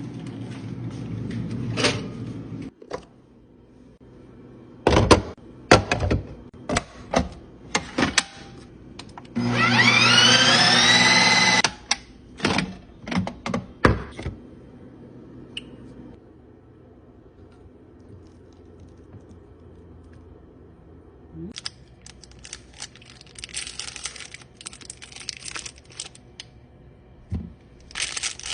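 Ninja Creami ice-cream machine's motor spinning up with a rising whine for about two seconds, among clicks and knocks of the pint container and lid being locked in and handled. Later comes a further spell of hissing noise with more clicks.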